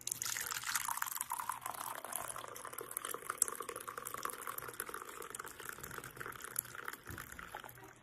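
Freshly brewed filter coffee pouring from a thermal carafe into a ceramic mug: a steady splashing stream as the mug fills, stopping near the end.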